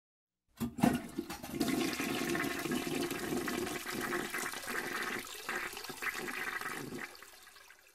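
Toilet flushing: a short knock or two, then rushing water that fades away near the end.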